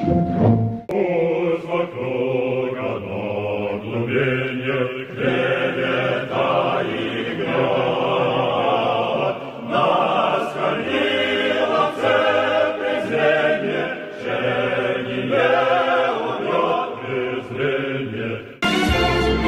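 A choir singing, in a muffled old recording that lacks all high treble. About a second before the end it cuts to full-range orchestral music.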